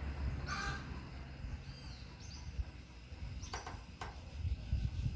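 Wind rumbling on the microphone, with a brief chicken call about half a second in and a small bird chirp around two seconds. Two sharp clicks come near the end.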